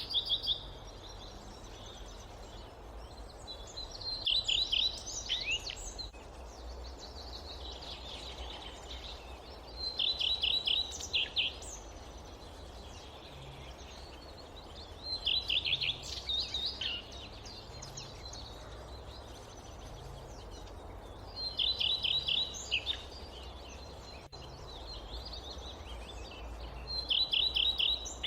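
A songbird repeating the same short phrase of quick high notes about every five to six seconds, five times over, against a steady low background rumble.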